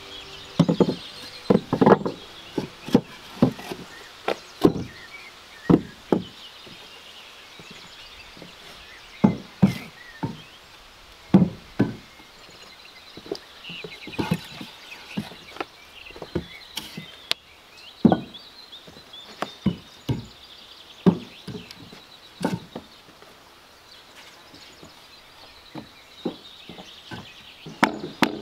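Short sawn wooden boards being handled and stacked on a plank floor, knocking against each other and the deck in irregular single knocks, some louder than others.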